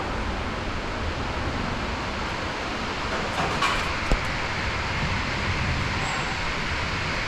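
Steady rushing background noise with a single sharp click about four seconds in.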